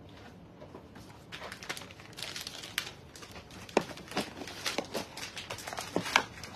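Close handling of a black cardboard box and its packaging: a rustle and crinkle about a second in, then a run of sharp knocks and taps.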